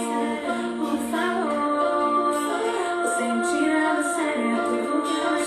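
Background music: a song with a woman singing long held notes, thin, with little bass.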